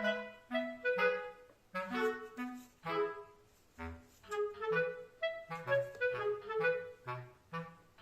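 Background music: a light melody of short, bouncy notes over lower bass notes.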